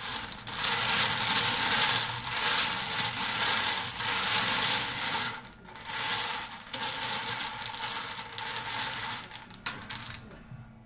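Wooden bingo balls tumbling and clattering inside a hand-cranked wire-cage bingo drum as it is turned. The rattle stops briefly just past five seconds, starts again, and fades out near the end.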